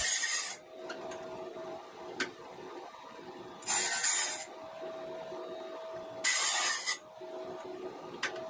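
A Harbor Freight Chicago Electric circular-blade sharpener's motor runs with a steady whine. Three times, a few seconds apart, its grinding wheel bites into the teeth of a large bandsaw blade in a short, loud, hissing grind, each lasting about half a second.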